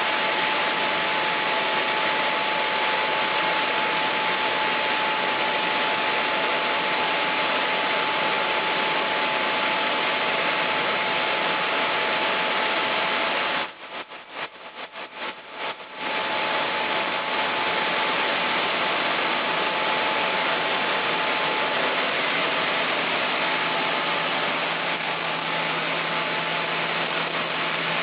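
Sawmill machinery running, a steady loud whir with a constant thin whine in it. The sound drops out, flickering, for about two seconds near the middle, then resumes.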